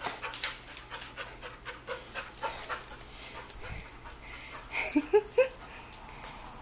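Dog sniffing around as it searches for hidden treats, with quick clicks and puffs as it moves, then a few short rising whimpers about five seconds in.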